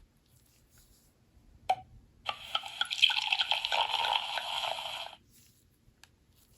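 A short sound-effect tone from the Nokia N91's small loudspeaker: a noisy, crackly burst dense with tiny clicks, lasting about three seconds. It follows a single click about a second and a half earlier, with almost no low end.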